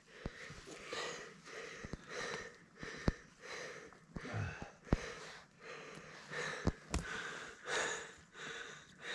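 A hiker breathing hard, out of breath from climbing, with soft breaths in and out about once a second. A few faint clicks sound between the breaths.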